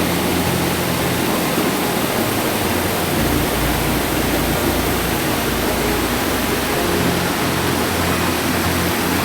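Waterfall rushing, a dense, steady wash of falling water close to the microphone.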